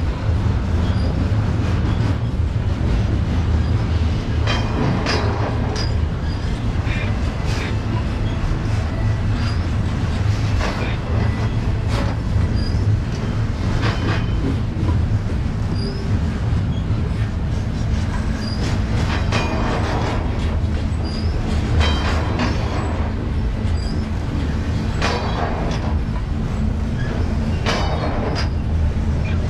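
A train rolling past on the BNSF main line, its wheels giving a steady low rumble with irregular clicks over the rail and short high wheel squeals now and then.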